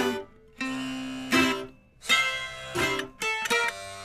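Instrumental background music on a plucked-string instrument: chords struck about once a second, with a quick run of notes a little past three seconds in.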